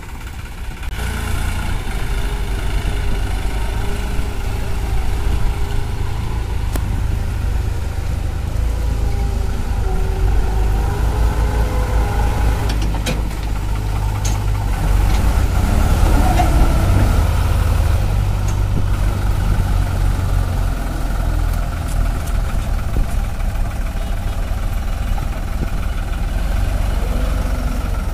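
New Holland 3600-2 tractor's three-cylinder diesel engine running hard under heavy load, hauling a fully loaded trolley through deep mud. The engine gets louder about a second in and is loudest midway through.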